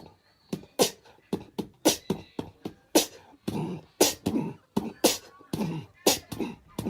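A quick, uneven string of sharp clicks and thumps, about three a second.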